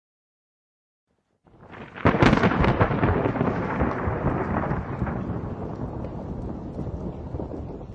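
Thunderclap sound effect: silence, then a rumble swelling about a second and a half in, breaking into a loud crackling crash at about two seconds, then a long rumbling fade.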